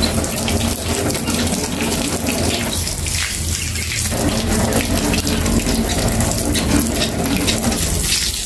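Garden hose stream spraying onto a car's freshly waxed front fender and tyre, water splashing off the paint and onto the ground in a steady hiss.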